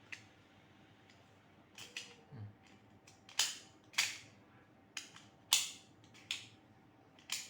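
Magnetic quick-release buckle of a nylon tactical belt being handled, giving about eight sharp metallic clicks and snaps at uneven intervals, the loudest a little past the middle.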